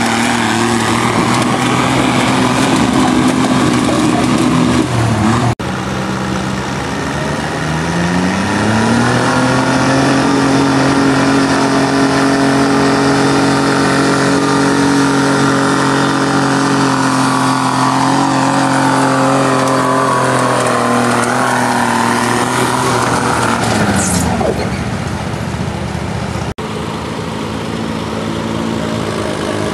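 Diesel garden tractor engines pulling a weight-transfer sled under load. About eight seconds in, one engine revs up and holds a steady high pitch under full load, then its revs drop off around twenty-four seconds. Near the end another diesel garden tractor's engine runs lower at the start of its pull.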